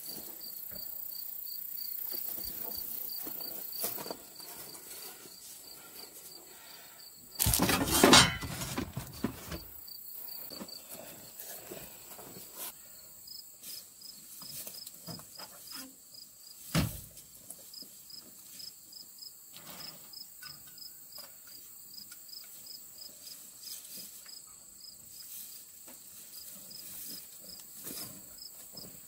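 Insects chirping in a steady, rapid, evenly spaced pulse. About seven seconds in, a loud noisy burst lasts about two seconds and is the loudest sound here. A sharp knock comes near the middle, with scattered small rustles and clicks around it.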